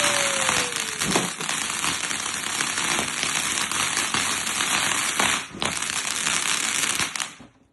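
A ground firework, such as a fountain, burning with a loud steady hiss and a few sharp cracks, with a short falling whistle in the first second. It cuts off suddenly about seven seconds in as it burns out.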